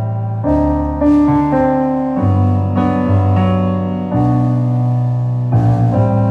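Digital stage piano playing a piano sound: sustained chords over low bass notes, with a new chord struck every half second to a second or so.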